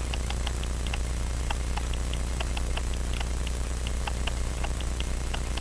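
Many small, light clicks of metal hand tools on a wrist-watch movement, coming irregularly several times a second, as the hairspring stud is worked loose. A steady low electrical hum runs underneath.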